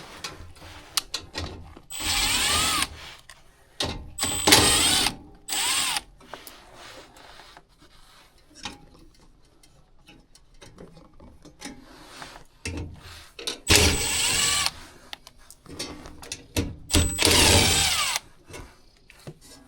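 Cordless drill/driver spinning in about five short runs, each under a second, with small clicks and handling noise between them: screws being run out of the furnace parts.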